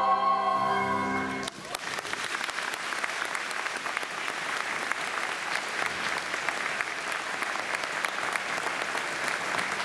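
Choir with flutes holding a final sung chord that cuts off about a second and a half in, followed by steady audience applause.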